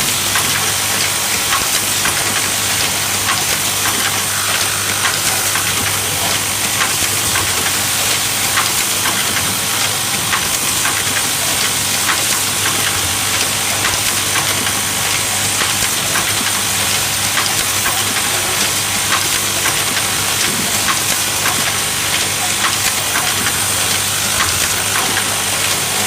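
Automatic hanger-clip assembly machine running continuously: a steady hum from its vibratory bowl feeders under a constant hiss, with rapid light clicks of parts being fed and pressed.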